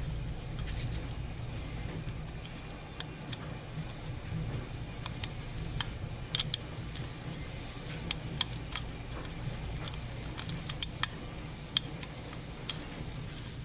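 Scattered light clicks and taps of a plastic oil filter housing and its O-ring being handled and cleaned, coming more often in the second half, over a steady low background hum.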